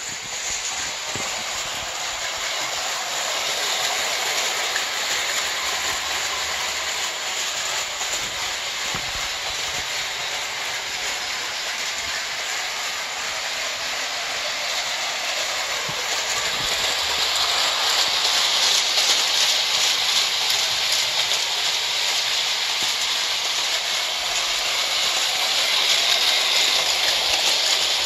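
1912 Märklin gauge 1 tinplate electric steam-outline locomotive and passenger cars running steadily around a circle of tinplate track: a continuous whir of the motor and gears with the rattle of wheels on the rails. It gets somewhat louder about halfway through as the train passes close by.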